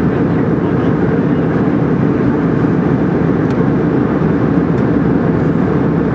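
Airliner cabin noise in flight, heard from a window seat: a steady, even rush of engines and airflow, heaviest in the low end, unchanging throughout.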